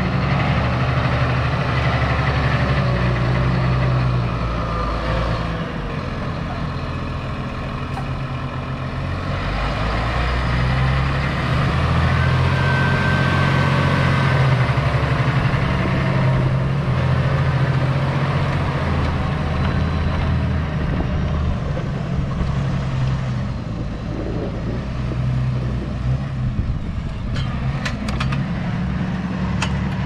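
Valtra T174's 7.4-litre six-cylinder diesel engine running steadily under load while pulling a five-furrow reversible plough through the soil. The sound is loudest around the middle and fades somewhat toward the end as the tractor moves away.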